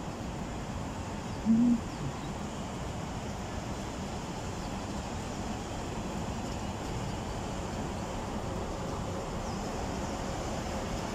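Steady outdoor city background noise, with one short low hoot about a second and a half in.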